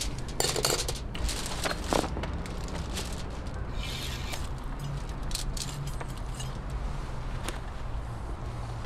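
Scattered clicks, scrapes and crinkles of metal tongs and a knife working through a spit-roasted whole lamb on aluminium foil, over a steady low hum.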